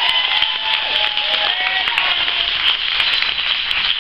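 Audience applauding, many hands clapping at once, with a few cheering voices in the first part.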